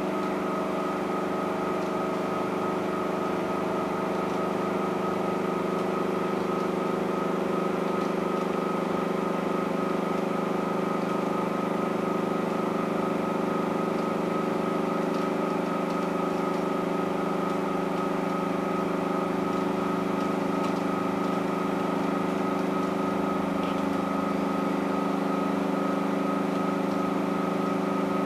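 Bottom-load water cooler's bottle pump running with a steady, even hum while priming the cold side. It is drawing water up from the bottle and has not yet delivered a steady stream.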